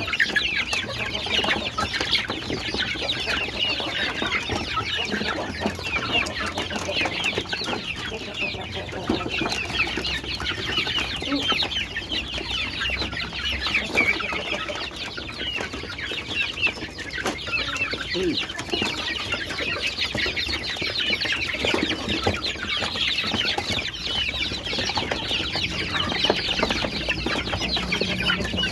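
A crowded flock of young kampung chickens peeping and clucking without a break, many short calls overlapping.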